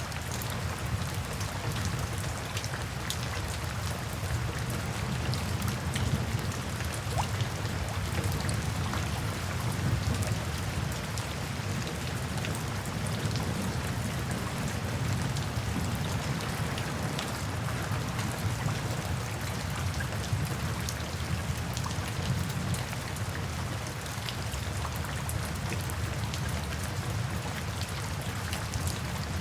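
Steady rain falling, with the patter of scattered individual drops over a continuous hiss and a low, even rumble underneath.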